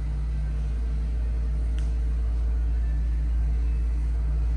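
Steady low rumble with a faint even hum underneath, unchanging throughout: background room noise.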